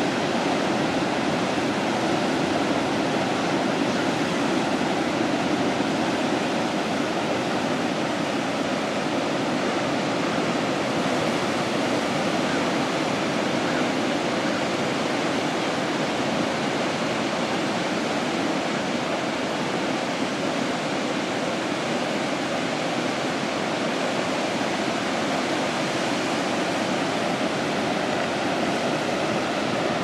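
Pacific surf breaking on a sandy beach: a steady, unbroken rush of waves and foam, with no single crash standing out.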